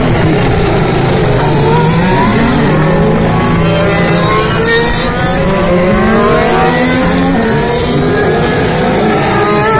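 A line of 2017 Formula 1 cars' turbocharged V6 hybrid engines passing one after another through a slow corner at formation-lap pace. Several engine notes overlap, each rising in pitch as the cars accelerate out of the turn.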